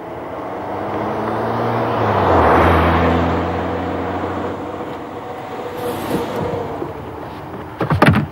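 Car running with a steady low engine hum that shifts in pitch about two seconds in, while a broad swell of road or traffic noise rises and eases off. A quick cluster of clicks and knocks comes near the end.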